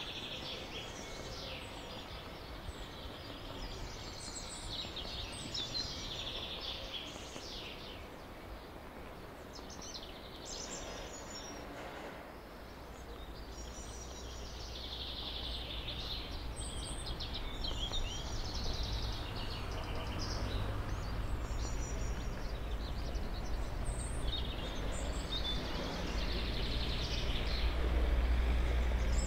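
Small songbirds chirping and singing in repeated short phrases, over outdoor background noise. A low rumble builds through the second half, growing louder toward the end.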